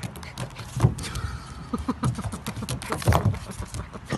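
Puppy's paws scrabbling and sliding on a plastic playground slide: a quick, irregular clatter of knocks and clicks, with a brief squeak a little after a second in.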